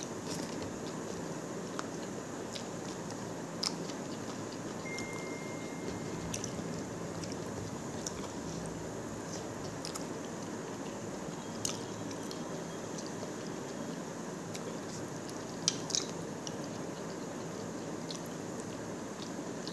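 A person chewing and eating rice with chicken by hand, with soft wet mouth sounds over a steady background hiss. A few sharp clicks stand out now and then, loudest about two thirds of the way in.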